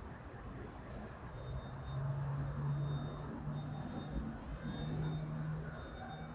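Wind buffeting the microphone, with a steady low motor-vehicle engine hum coming in about a second and a half in.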